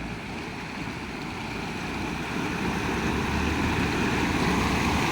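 Steady rush of flowing floodwater, with a vehicle's engine and tyre noise growing gradually louder as it approaches.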